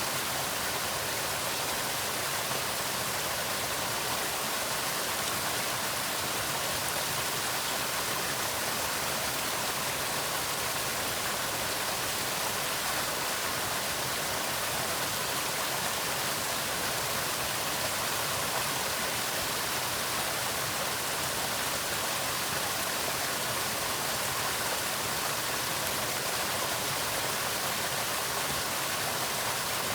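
Waterfall: water falling and splashing in a steady rush, with no change in level.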